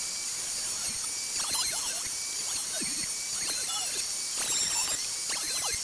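Benchtop thickness planer running, a steady high whine with shifting scraping squeals.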